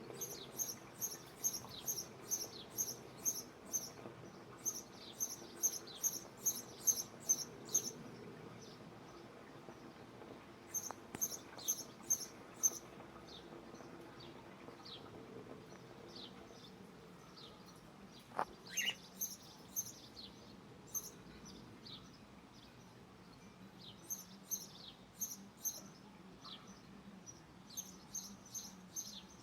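Cockatiels chirping: runs of short, high chirps at about two a second, broken by pauses, with a few lower falling notes in between.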